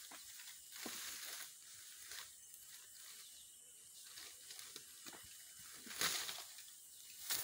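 A bull Sumatran elephant tearing up grass and undergrowth with its trunk as it feeds: soft rustling and crackling of plants, with a louder crackle about six seconds in and again near the end.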